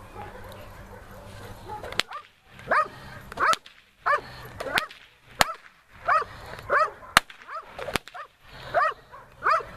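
A leashed dog barking repeatedly, often two barks close together, at a decoy during bite-work agitation, with about five sharp whip cracks spread through it.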